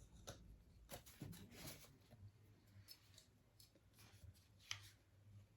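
Near silence with a few faint clicks and light scrapes from handling paint bottles and tools at the work table; the clearest click comes near the end.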